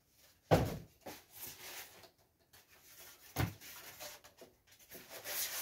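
Two sharp knocks about three seconds apart, the first the louder, with rubbing and rustling between them and again near the end, as a new plastic air fryer and its foam packing are handled during unboxing.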